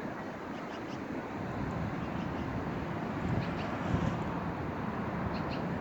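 Steady outdoor background noise, a low rumble with hiss, with a few faint short high sounds about three and five seconds in.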